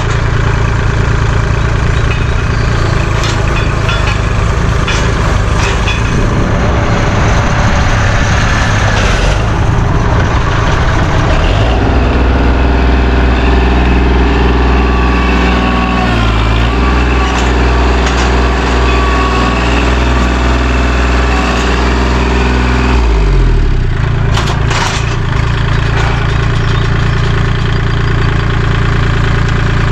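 Kubota L2501 compact tractor's three-cylinder diesel engine running while its front loader works at a large tree stump. The engine note grows heavier and deeper for about ten seconds midway, then eases.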